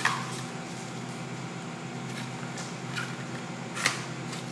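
Steady low background hum, with a couple of faint short clicks near the start and near the end.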